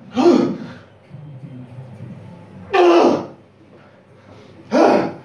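A man grunting with forceful, breathy exhalations as he strains at a heavy grip exercise. There are three sharp bursts, about two seconds apart, each cut short.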